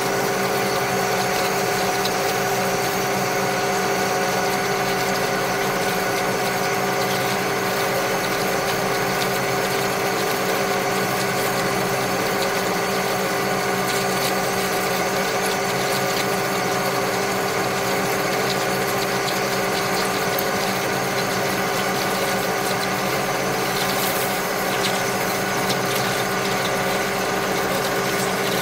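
Metal lathe running steadily, its motor and gearing giving a constant hum with several whining tones. A few faint ticks come near the end.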